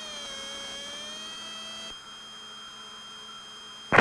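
Beech Bonanza F33A's electric landing-gear motor whining through the intercom as the gear retracts after takeoff. The whine dips in pitch, holds and cuts off abruptly about two seconds in, over a steady electrical hum. There is a sharp click at the very end.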